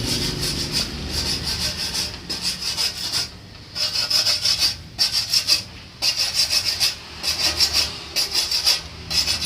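Quick back-and-forth scraping strokes of a hand tool on the welded aluminium evaporator, smoothing the weld flat. The strokes come in runs with a couple of short pauses.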